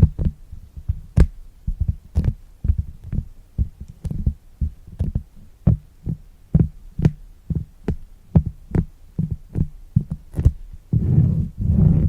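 Fingertips tapping an ASMR trigger surface, dull low taps at an uneven pace of about two to three a second. About eleven seconds in, a continuous rubbing or rustling sound takes over.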